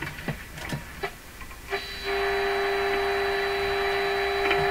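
A shortwave radio receiver being tuned onto a test signal: faint crackles and clicks at first, then, a little under two seconds in, the signal generator's steady modulation tone comes in through the radio's speaker and holds. The tone shows the set is tuned onto the generator's 16 MHz signal.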